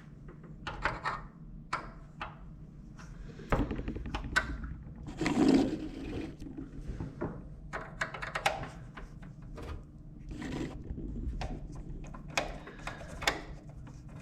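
Screwdriver working the second cover screw out of a desktop PC's metal case: a run of irregular small clicks and scrapes, with a louder knock of handling about five seconds in.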